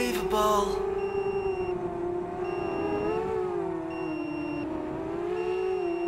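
ZMR250 quadcopter's Cobra 2206 2100kv brushless motors whining at a steady pitch that wavers a little with the throttle. A short high beep, about two-thirds of a second long, repeats about every second and a half.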